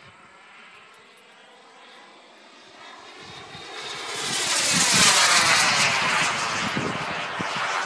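Radio-controlled model turbine jet flying past. Its whine swells over about two seconds, peaks about five seconds in while falling in pitch as it goes by, then slowly fades.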